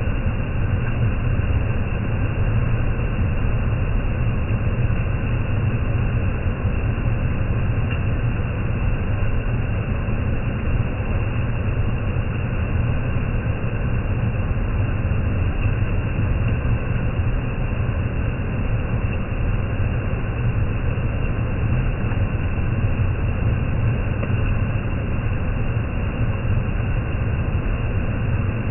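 Waterfall in heavy rainy-season flow: a loud, steady, unbroken rush of falling water, deepest in the low end.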